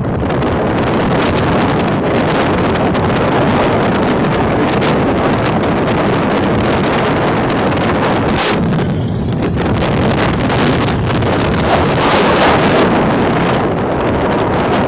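Wind buffeting a phone's microphone while riding on the roof of a moving vehicle at road speed: a loud, steady rush of wind noise.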